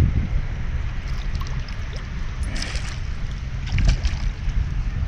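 Hooked moncholo catfish thrashing at the water's surface, with two short splashes about two and a half and four seconds in, over a steady low rumble.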